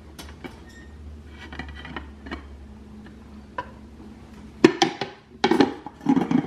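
A nonstick skillet and a glass plate being flipped over together and set down: light clicks of glass against the pan at first, then a few loud clattering knocks with a short ring in the last couple of seconds as the inverted pan and plate land on a wire cooling rack.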